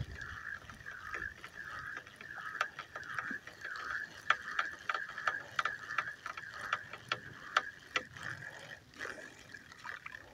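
Spinning reel being cranked to wind in line, a rhythmic whirr about twice a second with small clicks from the reel, fading out near the end.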